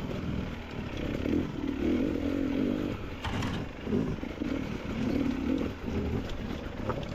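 Off-road motorcycle engine under uneven throttle, its note rising and falling every second or so as it is ridden over rough ground, with a sharp knock about three seconds in and another near the end.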